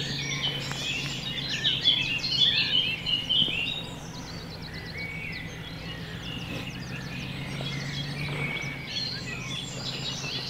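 Dawn chorus of songbirds: many overlapping chirps and trills, busiest in the first few seconds and thinner after, over a steady low hum.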